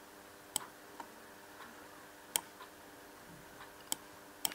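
Computer mouse clicking about five times at irregular intervals, short sharp clicks over a faint steady hum.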